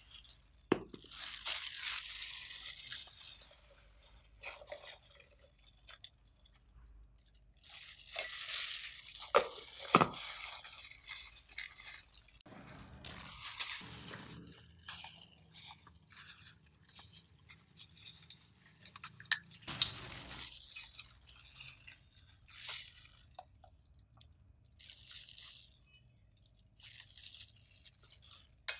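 Plastic food-prep gloves rustling and crinkling as hands handle and rub seasoning into raw pork belly in a ceramic bowl, in bursts with short pauses. A few sharp clinks of a spoon against the bowl.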